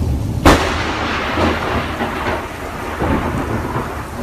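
Thunder from a close lightning strike: a sudden sharp crack about half a second in, then crackling, rolling rumble that slowly fades.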